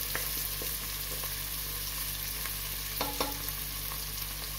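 Chopped onions and green chillies sizzling in hot mustard oil in a pressure cooker, being sautéed until soft, while a wooden spatula stirs and scrapes against the pot with small clicks. A couple of louder knocks come about three seconds in.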